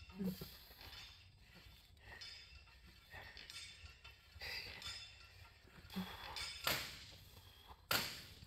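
Leg extension machine's weights clanking twice near the end as the set finishes, with faint strained breathing before.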